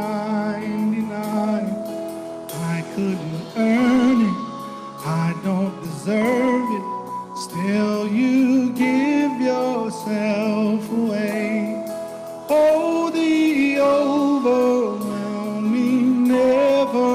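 Live contemporary worship song: a male lead singer sings slow, drawn-out lines with vibrato over held chords.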